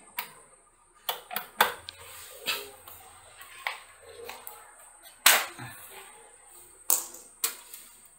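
A string of about nine sharp clicks and knocks, the loudest about five seconds in, from hands handling plastic power connectors and cables inside a metal desktop PC case, over a faint steady high whine.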